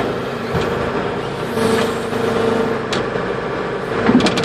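Backhoe engine running steadily, its drone growing stronger for about a second partway through as the hoe's hydraulic levers are tried, with a few short clicks from the controls.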